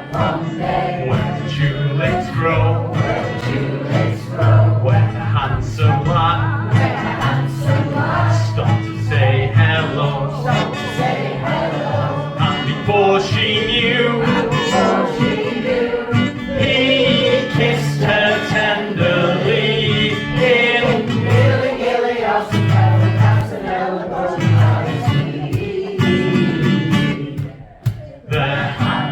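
A choir singing an upbeat song with guitar accompaniment, with a brief break in the sound near the end.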